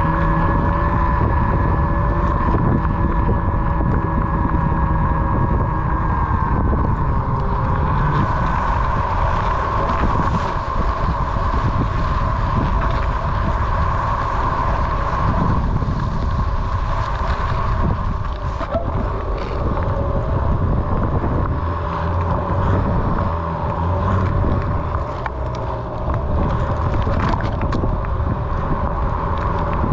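Onewheel XR's hub motor whining steadily while riding, its pitch dipping slightly about six seconds in. A low rumble of wind on the microphone runs underneath.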